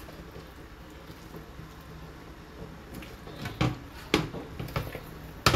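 A spatula scraping and knocking against a wok and the rim of a steel stockpot as a stir-fried tomato and spice mixture is scooped into the hotpot broth. There are a few sharp knocks in the second half, the loudest near the end, over a steady low hum.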